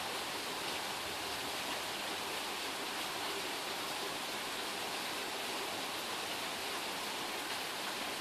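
Steady rain shower falling, an even hiss.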